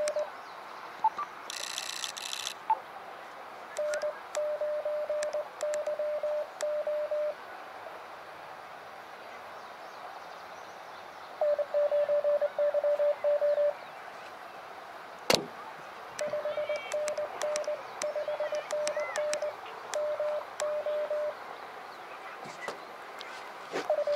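Morse code (CW) from an Elecraft KX2 ham transceiver: a steady tone near 600 Hz keyed quickly in dots and dashes, in several separate runs, over steady receiver hiss. A single sharp click comes about fifteen seconds in.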